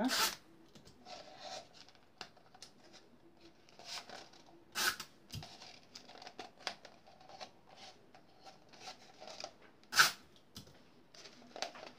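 Cardboard and adhesive tape being handled as the cardboard is wrapped around a paper cone: a light rustling with sharp crackles at the start, about five seconds in and, loudest, about ten seconds in.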